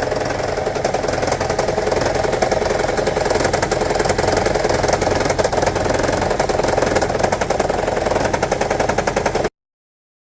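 2009 Toyota Prius's 1.5-litre four-cylinder petrol engine running with a loud, rapid, steady rattle; the car is logging a cylinder-4 misfire (code P0304). It stops abruptly near the end.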